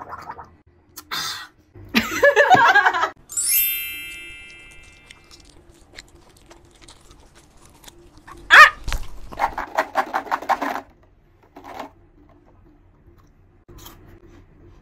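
Edited-in sound effects: a bright sparkling chime that sweeps down and rings out, fading over a couple of seconds, about three and a half seconds in. Later comes a sharp loud hit followed by about a second of fast, even pulses.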